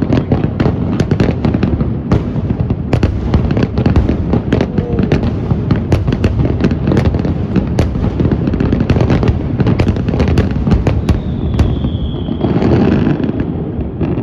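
Fireworks going off in a dense, continuous barrage of bangs and crackles. About eleven seconds in, a short whistle from a whistling shell rises above the barrage, followed by a heavier burst of bangs near the end.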